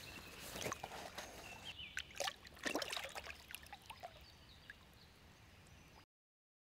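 Lake water splashing and sloshing as a carp is released from a wet retention sling, with a hand working in the shallows. The splashes come in irregular clusters, heaviest in the first three seconds, then die down, and all sound cuts off about six seconds in.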